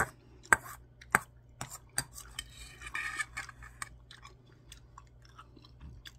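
Metal spoon clinking and scraping against a stainless steel bowl while scooping up curry rice: about five sharp clinks in the first two seconds, then a longer scrape. Softer small clicks and chewing follow.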